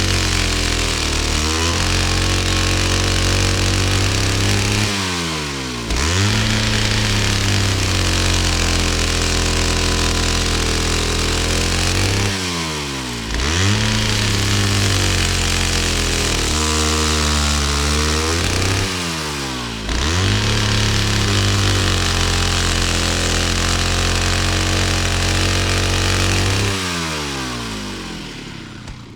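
Chainsaw engine revving to full throttle and holding for several seconds, then dropping back and revving up again, about four times over; it fades out near the end.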